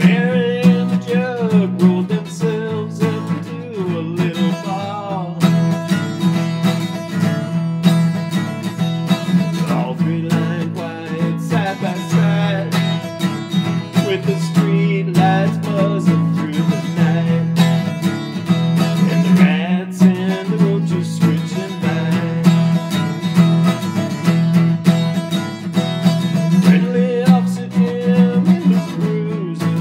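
Country-style song played on strummed acoustic guitar, with a wavering lead melody line over the chords.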